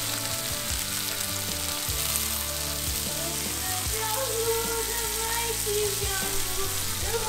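Venison tomahawk steaks sizzling steadily in a cast-iron skillet of hot olive oil with melting butter on top. Background music plays underneath, with a melody coming in about four seconds in.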